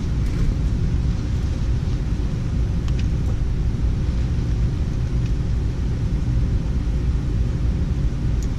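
A steady low mechanical rumble with a few faint clicks.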